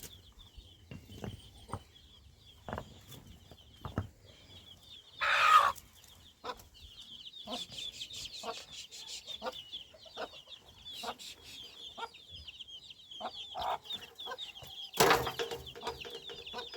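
Chickens clucking, with a continuous high, rapid peeping and scattered short knocks; two louder squawk-like bursts, about five seconds in and near the end.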